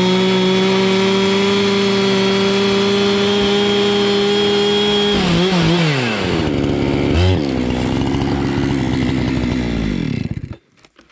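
Chainsaw on an Alaskan chainsaw mill, fitted with a ripping chain, running at full throttle on a rip cut. The revs drop about five seconds in, there is one short rev a couple of seconds later, it idles, and the engine is shut off near the end.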